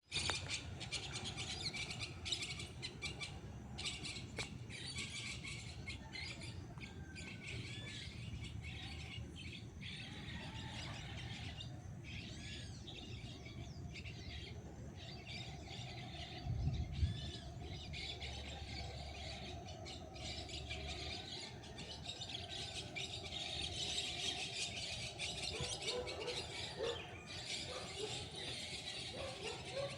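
Howler monkeys calling in the distance, a steady low roaring under a dense chorus of forest birds chirping. A brief low thump about 17 seconds in.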